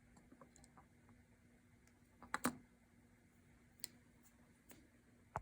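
A few faint, sharp clicks over a low steady hum, the loudest a quick double click about halfway through, then single clicks near the end.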